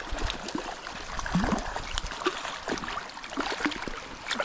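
Shallow river flowing steadily, with scattered light clicks and splashes as a hooked brown trout is reeled in on a spinning reel.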